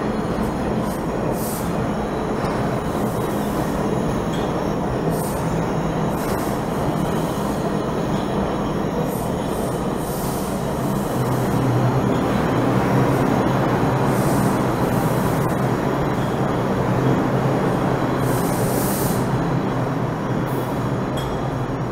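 Bombardier R142 subway cars running slowly along the track: a steady rolling rumble, a little louder about halfway through, with brief high-pitched squeals from the wheels several times.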